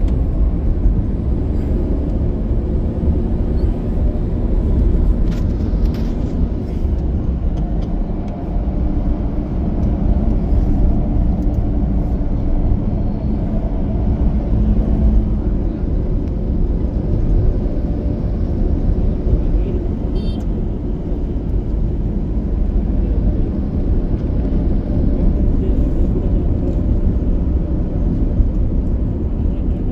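Steady low road and engine rumble heard from inside a moving car's cabin as it drives along.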